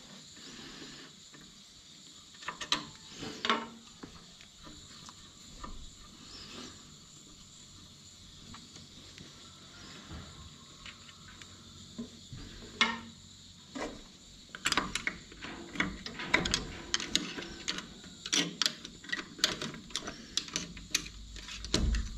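Metal clicks and clinks of hand tools working on metal parts: a few sharp clicks about three seconds in and again near the middle, then a quick irregular run of clicks through the second half.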